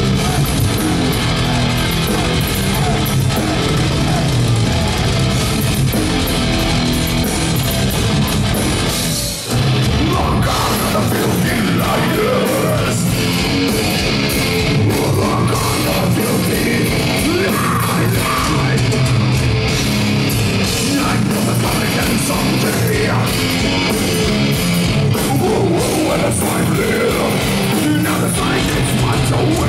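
Live death metal band playing loud: distorted electric guitars and drums, with vocals. The band stops for a brief break about nine seconds in, then comes straight back in.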